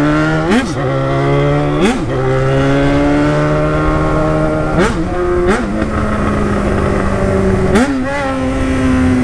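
Yamaha XJ6 600cc inline-four motorcycle with a loud exhaust, ridden hard and pulling up through the gears: the revs climb, then drop with a short crackle at each shift, about five times, and ease off slowly near the end.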